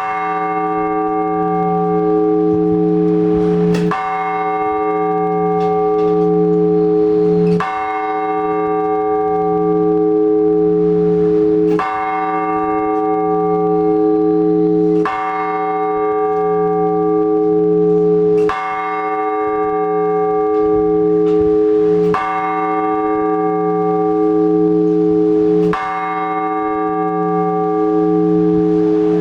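A single large Orthodox church bell tolled slowly, about one stroke every three and a half seconds, each stroke humming on into the next: the slow one-bell blagovest that calls people to the All-Night Vigil.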